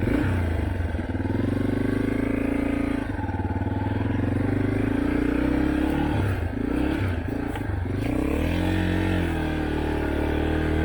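Yamaha dirt bike engine picking up from idle and running under throttle, its pitch rising and falling several times as the rider works the throttle.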